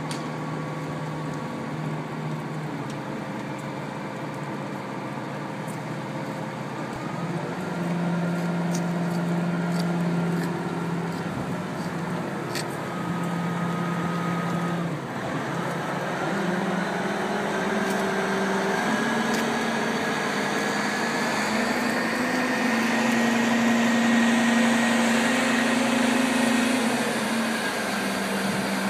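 Crane engine running steadily while hoisting a sailboat on slings, its pitch stepping up a few times as it is revved to take the load.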